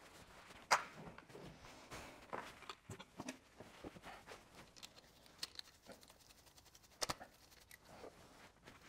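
Faint, scattered clicks, knocks and scrapes from tools and metal engine parts being handled at the underside of an engine block, with a sharp click just under a second in and another about seven seconds in.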